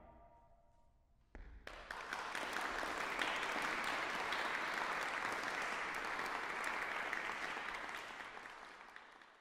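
The last marimba note rings out and fades. About a second in, the audience breaks into applause, which holds steady and tapers off near the end.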